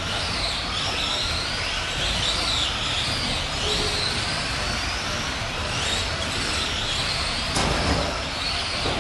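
Electric RC racing trucks running in a race, the whine of their motors and gears rising and falling over and over as they speed up, brake and pass. A single sharp knock about seven and a half seconds in.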